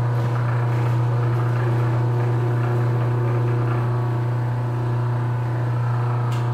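Electric fondant sheeter's motor running with a steady hum while a sheet of fondant is fed through its rollers.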